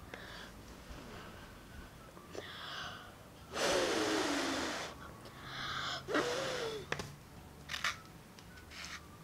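A child's breathy, gasping vocal sounds: a long one about three and a half seconds in that falls in pitch, and a shorter one about six seconds in.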